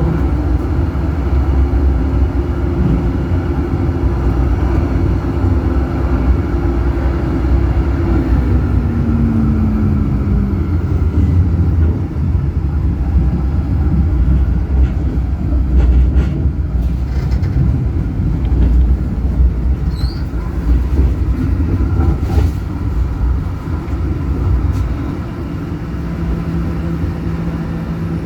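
Electric tram running on rails: a steady low rumble of wheels on track with a motor whine that holds, then slides down in pitch and fades about a third of the way in. A new low hum starts near the end.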